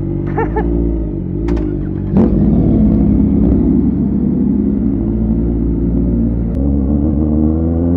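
Kawasaki ZX-4RR's inline-four engine running at low revs, with a jump in loudness about two seconds in as the throttle opens, then holding steady and starting to rise in pitch near the end.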